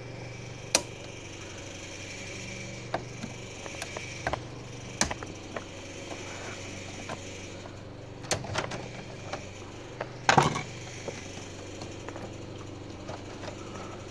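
Scattered clicks and knocks of gloved hands handling wires and parts in a breaker panel, over a steady low hum; the loudest knock comes about two-thirds of the way through.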